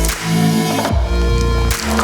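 Background music: an electronic track with heavy bass notes, a steady beat and a string-like melody.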